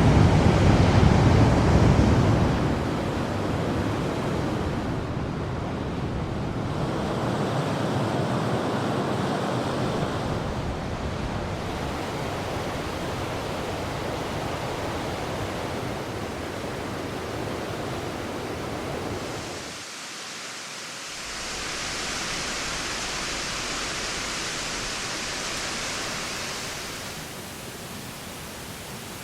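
Waterfall recordings: steady rushing water with no break, its character changing several times. It starts loud and deep, settles into an even rush, dips briefly past the middle, then turns to a brighter hiss before easing off near the end.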